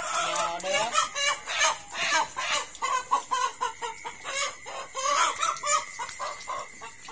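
Chickens clucking and squawking in quick, irregular calls, disturbed on their roost at night as people come to catch them.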